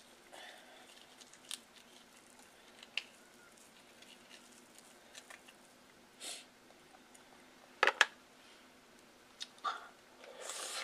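Crab leg shell being broken apart and the meat picked out by hand: sparse small crackles and clicks, with two sharp snaps about eight seconds in.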